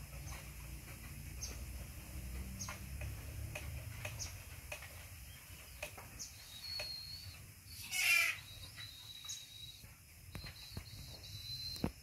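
Birds chirping outdoors: short, high chirps every so often, with one louder, brief call about eight seconds in and a thin steady high note in the second half.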